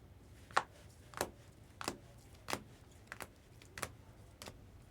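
Trading cards handled one after another, each set down or flicked with a short sharp tap, at an even pace of about one every two-thirds of a second.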